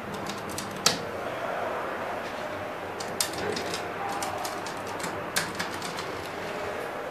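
Elevator car-panel push buttons clicking as a finger presses them again and again, a series of sharp clicks in irregular runs over steady background noise.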